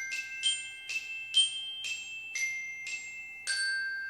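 Logo jingle of bright, bell-like struck mallet notes, about two a second, at several pitches. The last note, near the end, rings on and fades.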